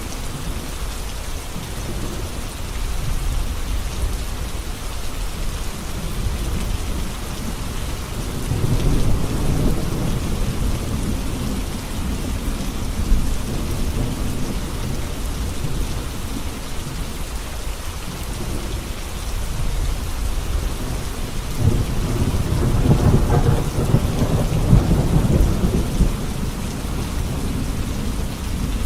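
Heavy rain falling steadily on a road, with low rolling rumbles of thunder swelling up twice, about 8 seconds in and again about 22 seconds in, each lasting several seconds.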